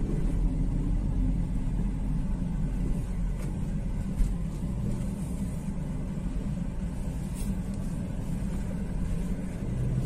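Steady low rumble of a car driving, heard from inside the cabin, with one brief tap about four seconds in.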